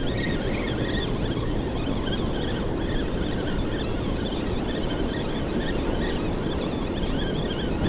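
Steady rush of a heavy, fast river current below a dam with all its spill gates open, water pouring over the wall and churning, mixed with wind buffeting the microphone.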